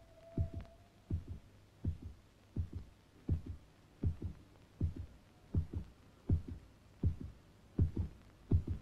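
Heartbeat: a steady low double thump, lub-dub, repeating about 80 times a minute. A faint short tone sounds in the first second.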